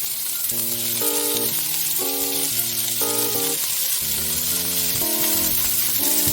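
Food sizzling as it fries in a pan: a steady hiss, with background music of repeated chords over it.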